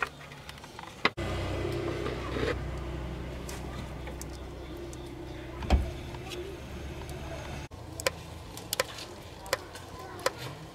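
Old oil draining from a vehicle's axle housing into a plastic bucket of oil. A steady engine-like hum with a few knocks runs through the middle, then sharp drips fall into the bucket about every three-quarters of a second.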